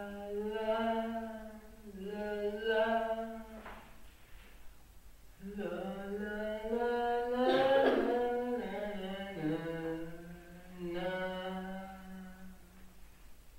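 A single voice singing unaccompanied, a slow melody in long held notes, with a short pause about four seconds in.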